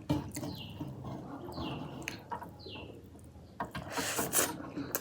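Close-miked eating sounds: chewing and mouth noises, with short high falling squeaks about once a second and a louder, noisier stretch about four seconds in.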